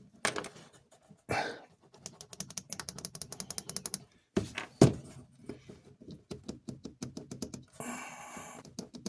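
Small metal parts of a toy train's motor truck being worked with hands and tools: a few sharp knocks, a quick run of clicks at about ten a second, one louder knock near the middle, and a short scrape near the end.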